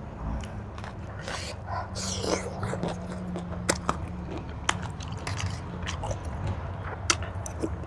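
Close-up eating sounds: chewing and biting into a Thai seafood papaya salad, with wet mouth noises and scattered sharp clicks, over a low steady hum.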